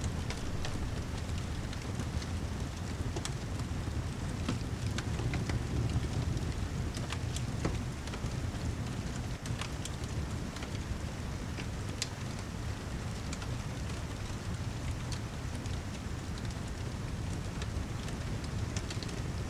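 Rain and fireplace ambience: steady rain noise, heaviest at the low end, with the sharp, irregular crackles of a burning wood fire scattered through it.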